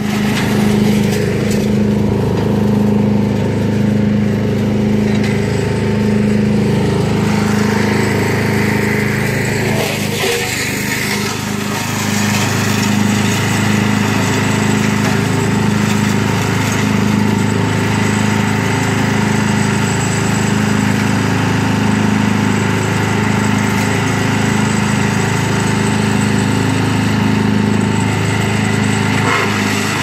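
Engine of a hired garden wood chipper/shredder running steadily and loudly, its note dipping briefly about ten seconds in.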